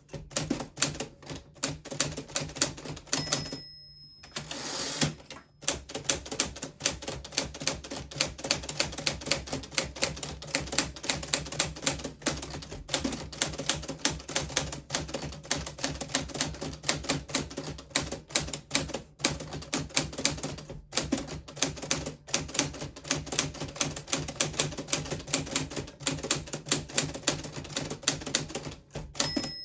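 1940s Smith Corona Silent manual typewriter being typed on at a fast, steady pace, keystrokes clattering in quick succession. There is a short break in the typing about three to four seconds in.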